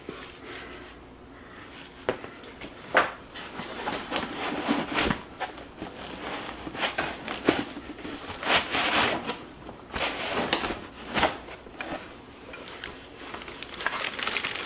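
Plastic packaging crinkling and rustling, with foam packing scraping, as machine parts are lifted out of a foam-packed cardboard box. It comes in irregular rustles and sharper crackles, starting about two seconds in.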